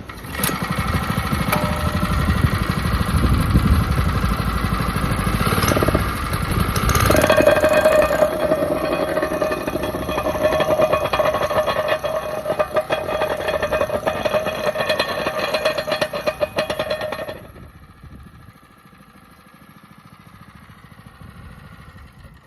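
MINATO MPC-501L plate compactor's small engine starting up and running steadily, growing louder with a stronger steady note about seven seconds in, then dropping away sharply about seventeen seconds in.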